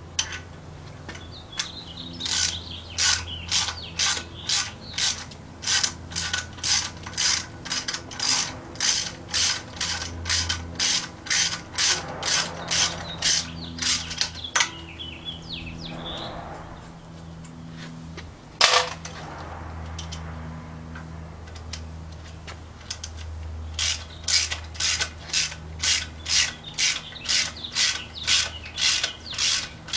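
Socket ratchet wrench clicking in quick repeated strokes, about two a second, as the manifold bolts on a Willys 4-134 engine are backed out. The clicking pauses midway, with a brief scrape and one sharp metal clank, then starts again.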